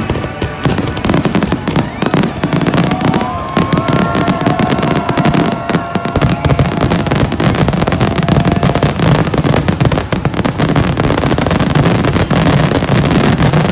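Fireworks going off in a dense, continuous barrage: rapid booms and crackling bursts one on top of another, with a few held whistling tones in the middle.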